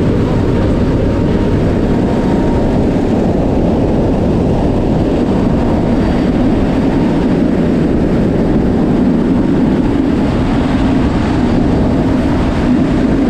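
Steady, loud rush of wind and turboprop engine noise heard from the open rear ramp of a C-130J Super Hercules in flight.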